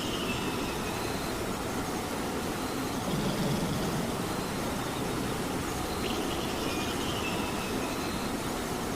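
Steady rain, with a cat snoring softly underneath in slow swells a few seconds apart.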